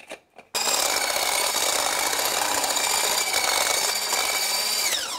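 Immersion blender with a whisk attachment whipping cream in a tall plastic beaker. The motor switches on about half a second in and runs at a steady speed, then its pitch falls as it spins down near the end.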